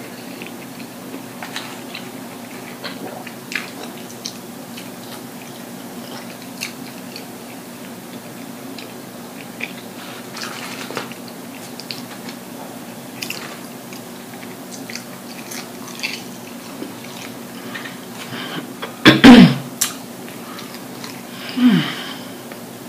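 Close-up chewing and lip-smacking of a person eating French fries, with scattered small wet mouth clicks. Near the end come two short, louder vocal sounds with a falling pitch, the first the loudest, over a steady low hum.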